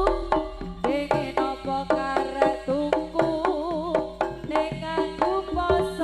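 Jaranan ensemble music: rapid hand-drum strokes on the kendang drive a steady beat under pitched percussion and a wavering melody line.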